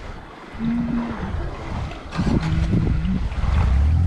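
Intro music: sustained low notes that start about half a second in and build to a deep, loud drone near the end.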